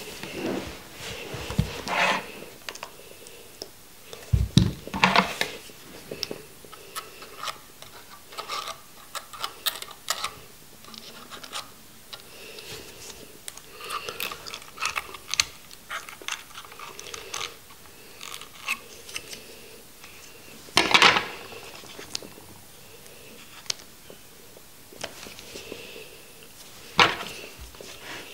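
Small clicks, taps and rubbing as a vape box mod and its rebuildable atomizer are handled and worked on over a table, with a few dull knocks on the tabletop. One longer rush of noise comes about three-quarters of the way through.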